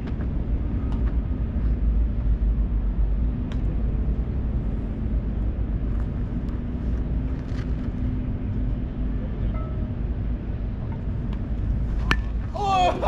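Steady low outdoor rumble with faint scattered clicks from a baseball game. About 12 seconds in comes a single sharp crack, and right after it a player's short shout.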